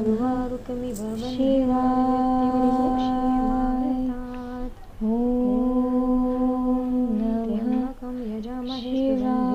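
Devotional chanting in long held notes at a steady pitch, with brief breaks about halfway and near the end.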